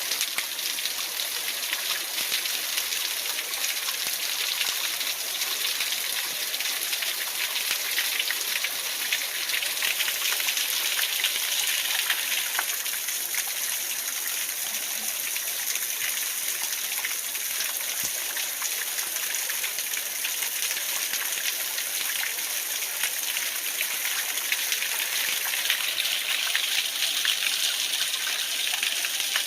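Waterfall: falling water splashing in a steady, even hiss.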